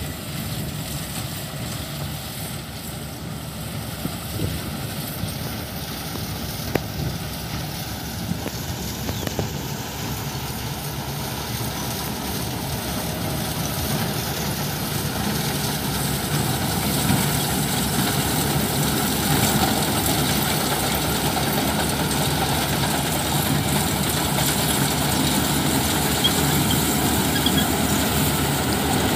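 GAM paddy combine harvester running while it cuts a rice crop, its engine and machinery a steady drone that slowly grows louder as the machine comes closer.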